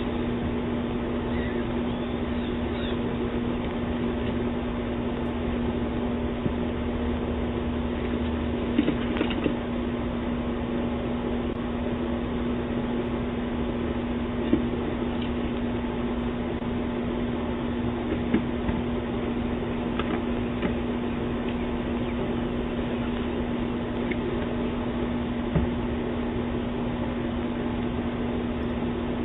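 Steady hum and hiss picked up by a doorbell camera's microphone, with one constant low tone and a few short knocks spaced several seconds apart.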